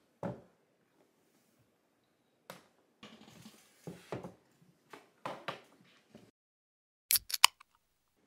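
Handling noise on a desk as a keyboard is slid out from under a laptop stand and things are moved around: light knocks, taps and rustles, then a quick run of sharp clicks near the end.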